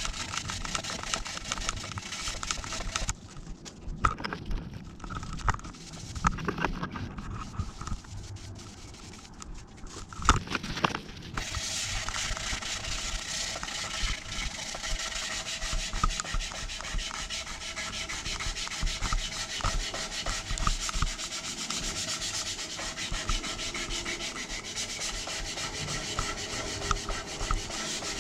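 Harsh scouring pad scrubbing a soap dispenser to rub off its printed logo: a fast, steady rubbing. It breaks off about three seconds in for roughly eight seconds, with a few knocks, then carries on steadily.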